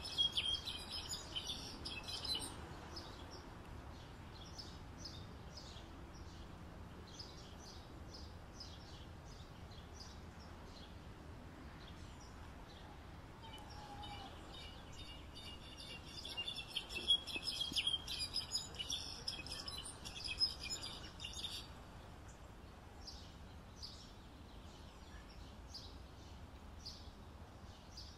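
Goldfinch song: long runs of fast, jumbled twittering and trills, one in the first couple of seconds and a louder one a little past the middle, with scattered single chirps between.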